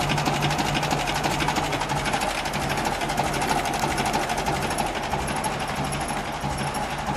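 The 1936 Alvis's engine idling steadily, a fast, even mechanical clatter over a low hum.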